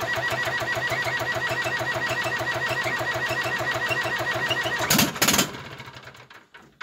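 Freshly rebuilt Zetor Crystal 8011 diesel engine running at a steady, even beat on its first start. A little after five seconds there are two loud bangs. The engine then winds down and stops near the end.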